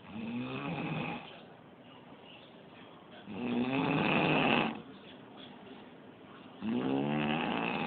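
A man snoring: three long snores, each about a second or more, about three seconds apart, with the middle one the loudest.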